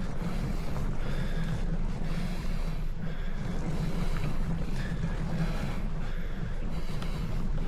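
Steady low wind rumble on the microphone of a camera riding along on a bicycle climbing uphill, with a fainter hiss above it.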